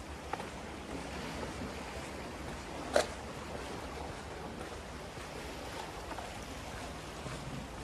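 Steady wash of small waves from a calm sea, with one sharp knock about three seconds in.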